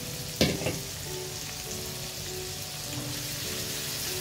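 Chopped onions sizzling in hot oil in a frying pan, stirred with a spatula. There is a sharp knock about half a second in.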